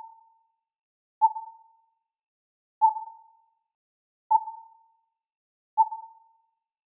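Electronic sonar-style ping sound effect: a single mid-pitched tone that strikes sharply and fades away, repeating evenly about every one and a half seconds, four pings in all.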